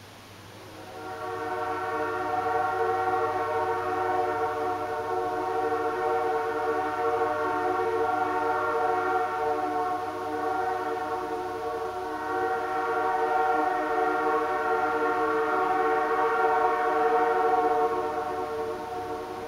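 Nathan AirChime J3 three-chime locomotive air horn blowing one long, steady chord. It sounds for about seventeen seconds, eases slightly about ten seconds in, and fades away near the end.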